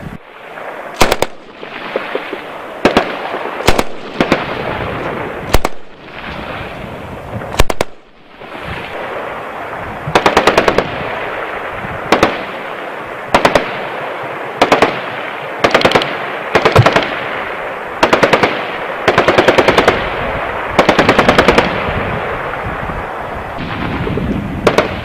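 M240B 7.62 mm belt-fed machine gun firing many short bursts of a few rounds each, with the reports echoing between bursts.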